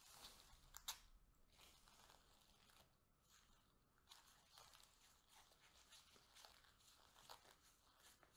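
Faint crackling and scratching of a plastic yogurt cup and its foil lid being picked up, turned and tilted in disposable-gloved hands, with two sharp clicks about a second in.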